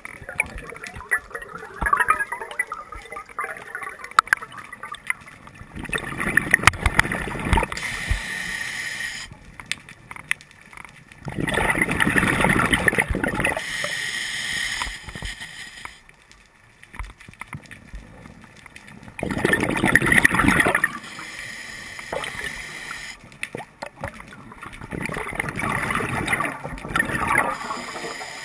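Scuba diver breathing through a regulator underwater: four loud gurgling bursts of exhaled bubbles several seconds apart, with quieter bubbling and clicks in between.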